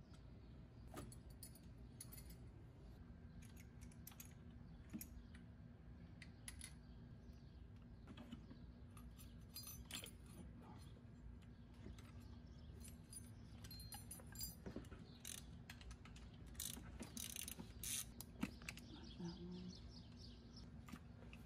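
Faint, scattered metallic clinks and taps of hand tools and small parts being handled while the engine's intake and fuel system are taken apart, over a low steady hum that comes in a few seconds in.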